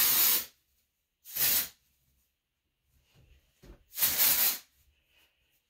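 Three short bursts from an aerosol hair-product spray can, sprayed onto hair, the last one a little longer. A soft knock comes just before the third burst.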